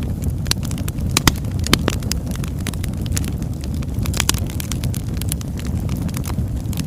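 Wood fire burning, logs crackling and popping in irregular sharp snaps over a steady low rumble.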